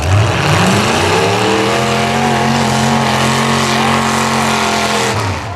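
A demolition derby car engine revving up and then held at high revs for a few seconds, loud, its pitch rising over about the first second and then holding steady.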